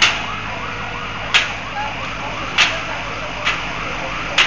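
Emergency vehicle sirens sounding in a fast rising-and-falling yelp over a steady low engine hum, cut by four short sharp bursts of noise about a second and a half apart.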